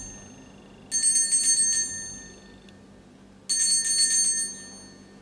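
Altar bells rung at the elevation of the consecrated host: a jingling ring about a second in and another about three and a half seconds in, each starting sharply and fading away over about a second.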